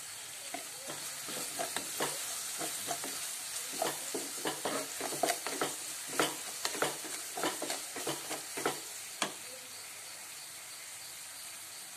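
Chopped onions and garlic sizzling in hot oil in a kadai as they sauté, while a wooden spatula stirs and scrapes them against the pan in a run of quick strokes. The stirring stops about three-quarters of the way through, leaving only the steady sizzle.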